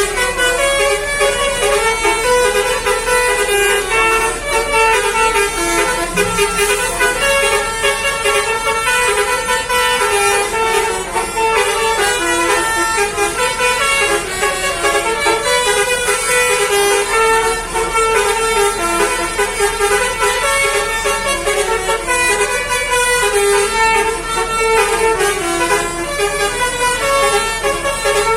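Bus 'telolet Basuri' musical air horn playing a rapid melody of steady notes that step up and down in pitch, continuously and loudly.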